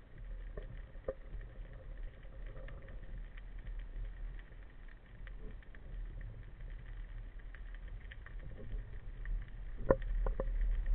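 Underwater ambience heard through a camera housing: a steady low rumble with scattered faint clicks and crackles, and a few sharper clicks near the end.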